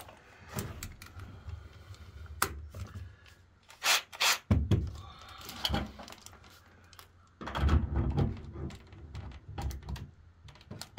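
Knocks, clicks and rattles of a metal electrical box and screws being handled and fitted against a corrugated steel container wall, with two sharp knocks about four seconds in.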